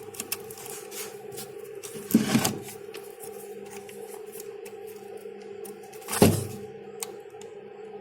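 Handling sounds as a speaker is hooked up to a repaired home theatre amplifier: two dull thumps, about two and six seconds in, and a few small clicks near the end, over a steady low hum.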